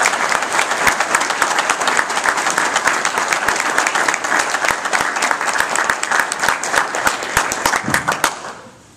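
Audience applauding, a dense, steady clatter of many hands clapping that dies away near the end.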